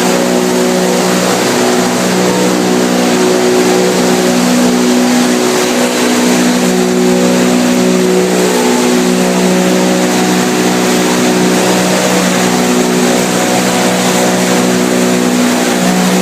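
PET bottle washing line running: steady, loud machinery noise with a continuous motor hum.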